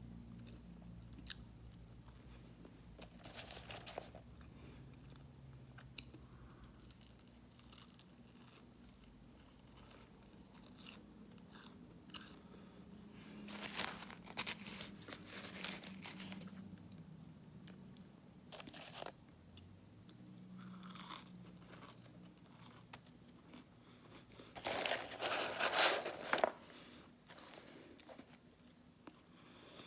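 Close-up biting and chewing of crunchy fast food, Wendy's fries or cookie, in several bursts of crunching with quieter chewing between; the loudest crunching comes about 25 seconds in.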